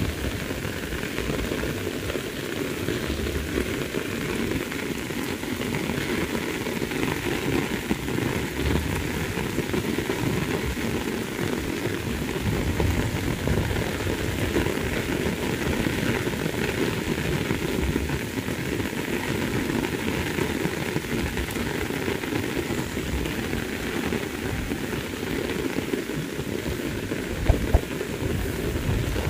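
Heavy rain pouring steadily on grass, leaves and a waterlogged field, an even hiss with no let-up. Two brief sharp knocks stand out near the end.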